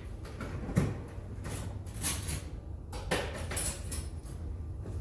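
Kitchen handling sounds: a few knocks and scrapes of utensils and containers, loudest about two seconds in and again around three to four seconds.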